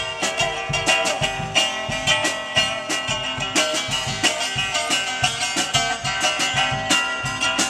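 Live blues-rock band playing an instrumental passage: a sunburst archtop guitar strummed and picked hard over drums keeping a steady beat.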